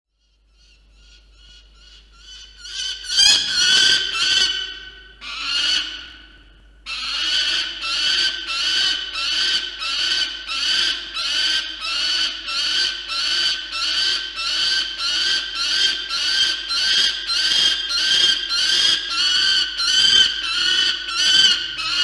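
Peregrine falcon calling: a long series of loud repeated calls, starting faint and building, then from about seven seconds in a steady run of about two to three calls a second.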